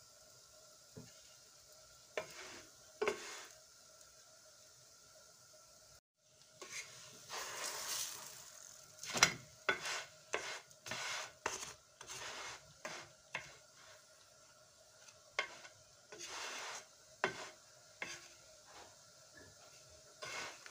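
Wooden spatula scraping and knocking against a flat non-stick pan as a frying katmer flatbread is lifted and turned, with short bursts of sizzling from the oil. The strokes come thick and fast from about six seconds in.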